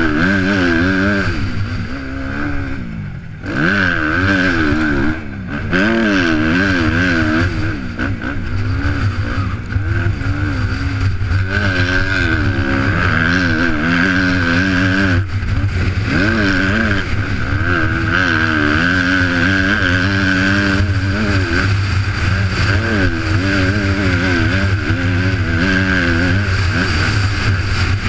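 Yamaha YZ250 two-stroke motocross engine revving hard and backing off again and again as it is ridden around the track, the throttle shut briefly twice in the first few seconds. Wind noise on the microphone runs under it.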